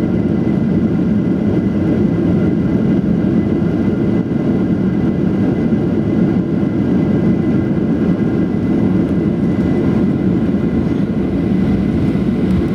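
Steady cabin noise of a Boeing 737-800 with its CFM56 jet engines running, heard from inside the passenger cabin: a deep, even roar with a faint high steady tone.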